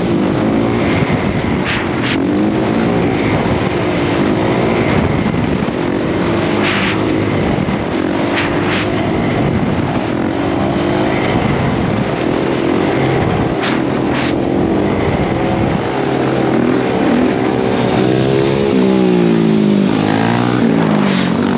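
Dirt bike engine running under throttle, its pitch rising and falling repeatedly as it revs and changes gear, with wind noise on the microphone. Near the end, other engines rev and fall away as it draws up to a group of riders.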